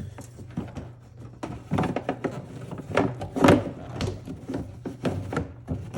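Plastic clicks and knocks as the cabin air filter housing of a 2014 Mustang GT is handled and the old filter is pulled out, a run of short irregular knocks with the loudest about halfway through.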